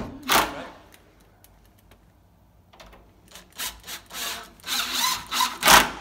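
Makita 18V cordless impact driver turning a screw in the forend of a mortice lock, run in short bursts that start about three seconds in and come quicker and louder toward the end. A single sharp knock right at the start.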